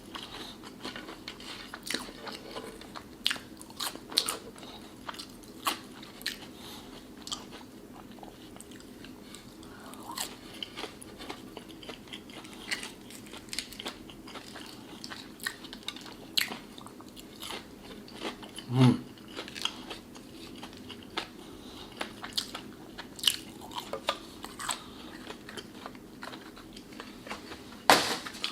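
Close-miked eating sounds: a person chewing and biting Chick-fil-A fast food, with many small crunches and wet mouth clicks at an irregular pace, and a sharper loud click near the end.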